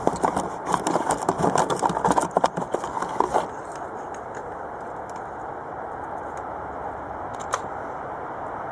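A rapid run of clicks and rattles, like objects being handled, for about three and a half seconds. Then a steady outdoor background with a single click near the end.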